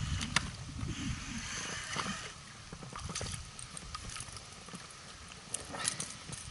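Faint water sloshing around a small boat, with scattered small clicks and knocks of handling and a low rumble in the first couple of seconds.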